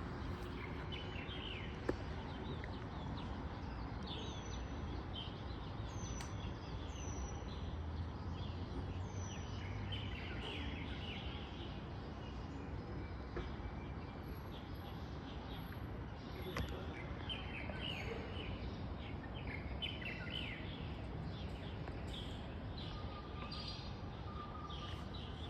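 Small birds chirping and calling on and off over a steady low background rumble, with a few short high whistles, and a single sharp click about two seconds in.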